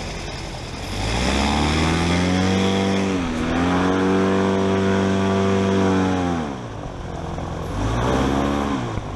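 Airboat engine and propeller revving up about a second in, held high with a brief dip, then easing off, with a second short rev near the end, while the boat is driven across grass.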